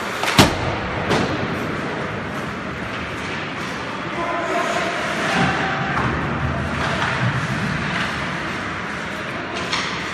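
Ice hockey play close to the boards: skate blades scraping on the ice and sticks clacking over a steady rink din, with a sharp knock about half a second in and players' shouts around the middle.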